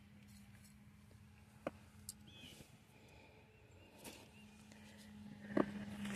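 Quiet handling sounds of transplanting seedlings: a few light clicks and taps from plastic nursery pots and a hand trowel in soil, the loudest near the end, over a faint steady low hum.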